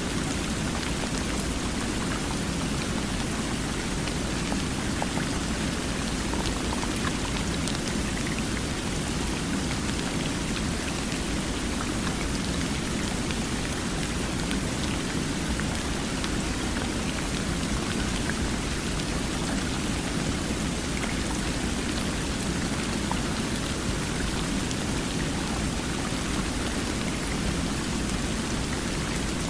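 Water flowing with a steady, unbroken rush, flecked with faint small splashes.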